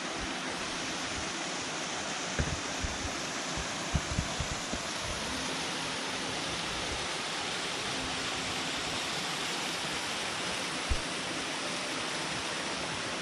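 Small mountain-creek waterfall: a steady rush of falling water, with a few brief low bumps about two and a half, four and eleven seconds in.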